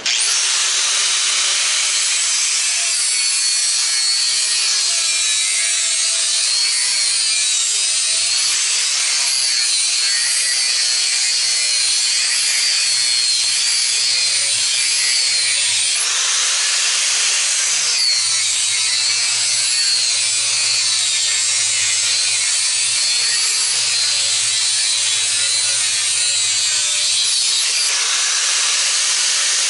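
Angle grinder with a thin cut-off disc cutting the copper windings off one side of an electric motor stator. The grinding runs without a break, its high whine wavering up and down in pitch as the disc bites.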